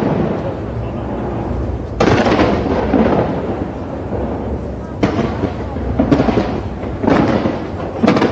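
Aerial fireworks bursting with deep booms, a new burst about 2 s in and then roughly once a second from about 5 s on, each one rumbling and fading.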